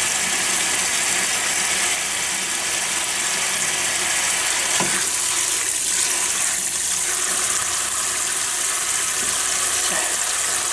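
Kitchen tap running steadily onto a zip-top bag of cooked chicken-breast ham on a metal tray in a stainless steel sink, quick-cooling it under cold water. The splashing changes for a few seconds in the middle as hands turn the bag under the stream.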